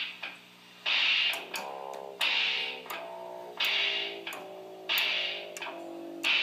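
Electronic keyboard music: short chords that change about every half second, over a hissy beat that comes evenly about every 1.3 seconds.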